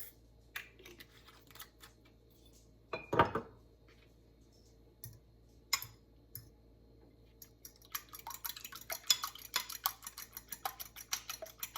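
Scattered clinks of a utensil against a bowl, with a louder clatter about three seconds in; from about eight seconds in, fast rapid clicking of eggs being whisked in a bowl.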